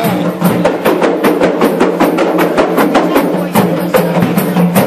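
Kompang hand drums beaten together in a fast, steady rhythm, several sharp slaps a second, leading a wedding procession.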